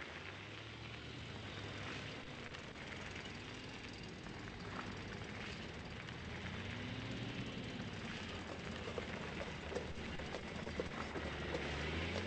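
A steady low mechanical rumble, like a running vehicle engine, under a hiss of noise with scattered small clicks. It grows slightly louder toward the end.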